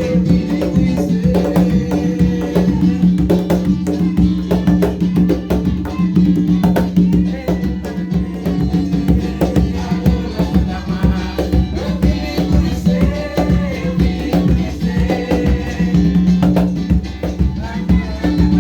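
Folk percussion music: hand drums and a rattle-type shaker playing a fast, steady rhythm over a held low tone.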